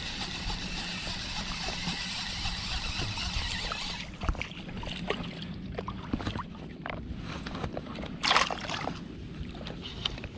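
Shallow bay water sloshing and lapping close to a wading angler. A steady rushing hiss fills the first four seconds and stops suddenly; after it come scattered small splashes and clicks and one louder rush of water noise about eight seconds in.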